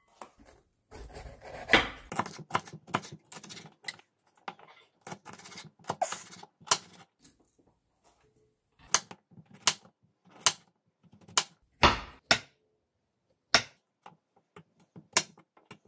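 Kitchen knife cutting vegetables on a wooden cutting board: a run of sharp knocks, close together at first, then about one a second as button mushrooms are sliced.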